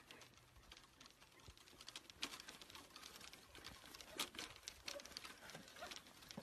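Faint, irregular patter of running footsteps on grass, mixed with knocks from a handheld phone being jostled. The sharpest knocks come about two and four seconds in.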